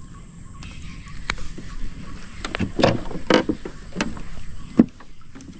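Irregular knocks and clatter over a low rumble, about a dozen scattered strokes with one sharp knock near the end, as a freshly caught hampala and the fishing gear are handled.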